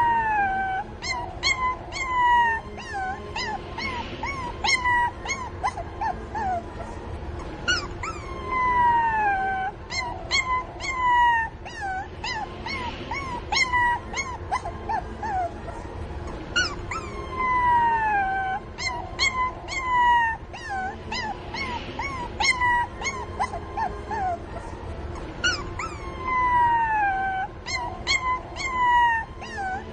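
Puppies crying and whimpering as they call for their mother: long whines that fall in pitch, mixed with many short high yelps. The same sequence of cries comes round again about every nine seconds.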